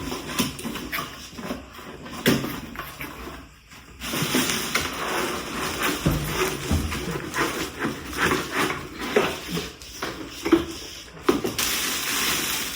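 A boxed kitchen utensil set of silicone spoons and knives being handled and unpacked: utensils and packaging knocking and clicking, with a rustling of packaging from about four seconds in.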